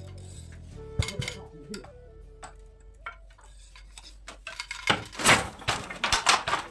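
Wooden jacquard handloom at work: light clicks and rattles of the loom as threads are handled, then two loud knocks about five and six seconds in as the beater is swung against the cloth.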